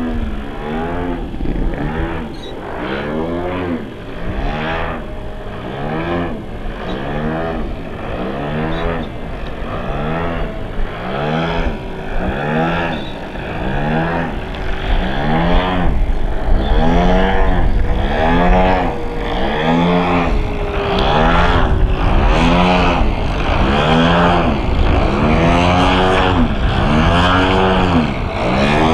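Radio-controlled Yak 54's DA50 single-cylinder two-stroke petrol engine, fitted with a Zimmerman exhaust pipe, running in flight. Its pitch rises and falls over and over, about once every second or two, as the plane swoops and the throttle changes.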